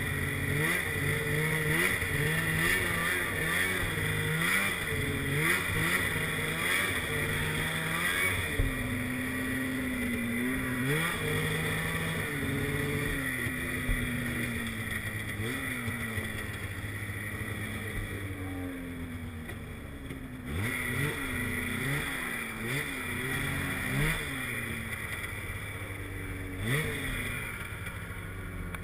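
Snowmobile engine running under load, its pitch rising and falling again and again as the throttle is opened and eased off. In the last third it runs lower and quieter.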